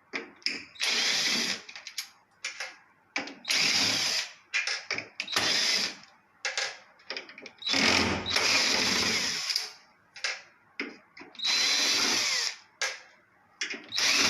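Cordless power screwdriver backing out the screws on top of a washing machine's cabinet, in about seven short runs of a second or so, with clicks and knocks of the screws and tool between them.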